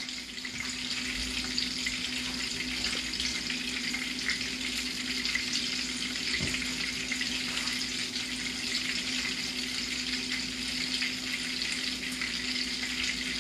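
Coconut-crusted fish fillets frying in shallow oil in a skillet, a steady, even sizzle, with a steady low hum beneath it.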